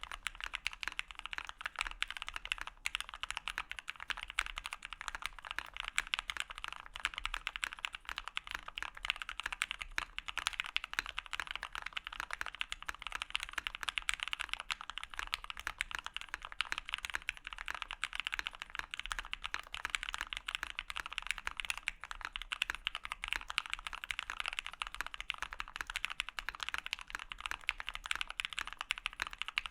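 Continuous, rapid typing on a custom mechanical keyboard: lubed 8008 Ink linear switches (Krytox 205g0) in a Daji Seis Cinco aluminium case with a full aluminium plate, Poron foam dampening and CRP Desko Black keycaps, giving a steady stream of keystroke clacks.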